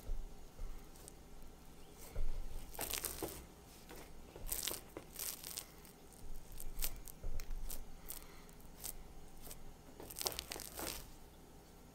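Hands pressing, rolling and dragging a gluten-free multigrain sourdough dough across a flour-dusted countertop: short, irregular scrapes and rustles as the dough and palms slide over the flour.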